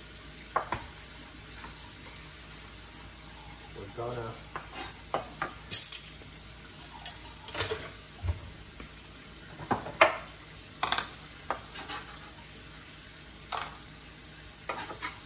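Scattered clicks, taps and light scrapes of a knife, gloved fingers and a plastic bowl on a plastic cutting board as sliced garlic is gathered off it, the loudest knock about ten seconds in.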